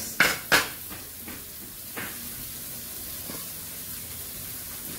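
Egg and vegetable mixture sizzling steadily in a wok over a gas flame. Two sharp knocks sound in the first half second, then the frying goes on alone with a few faint ticks.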